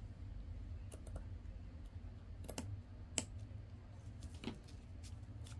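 Scissors snipping off the sides of a scalloped lace trim: a scatter of small, sharp snips and clicks at uneven intervals, the sharpest about three seconds in.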